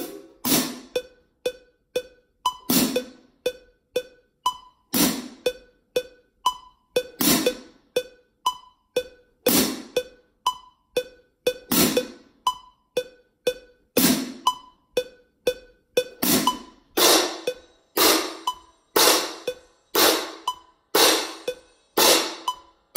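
Pair of marching crash cymbals struck together in a drumline exercise, each crash ringing briefly. Crashes come in pairs about every two seconds, then from about two-thirds of the way through, one roughly every half second. A metronome ticks steadily underneath, with an accented click about every two seconds.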